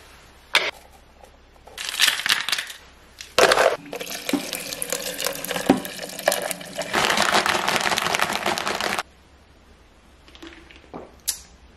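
Kitchen tap running into a plastic shaker bottle, a steady splashing hiss that stops abruptly about nine seconds in. A few sharp clicks and a short rustle come before it, from the tub and shaker being handled.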